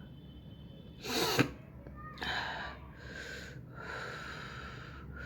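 A person sneezes once, sharply, about a second in, the sneeze set off by tickling inside the nose with a pen. It is followed by three drawn-out breathy sounds.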